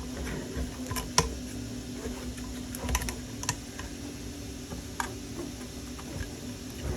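Scattered light clicks and taps of hard 3D-printed plastic parts being handled while a flexible TPE track is worked onto the drive gear of a small model skid steer, over a steady low hum.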